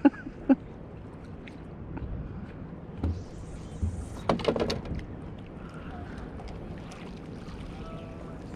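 Knocks and bumps on a fishing boat: two sharp knocks at the start and a cluster of clatter about three to five seconds in, over a steady bed of wind and water noise.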